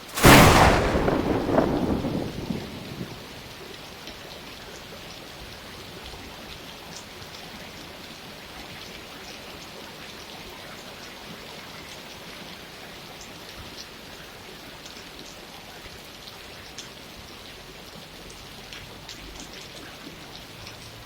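A sudden thunderclap just after the start: a sharp crack that rumbles away over about three seconds. Then steady rain falls, with scattered drop ticks.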